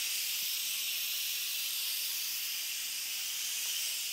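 Steam hissing steadily out of an Instant Pot's pressure-release valve, turned open for a quick release of all the pressure at the end of cooking. A high, even hiss.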